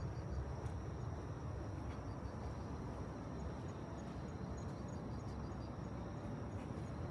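Insects chirping steadily, a thin high trill with an even pulsing beat, over a low steady rumble.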